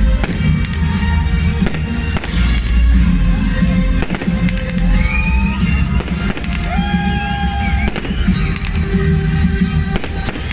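Fireworks display: shells bursting in many sharp bangs in quick succession, with crackling stars and a continuous low rumble.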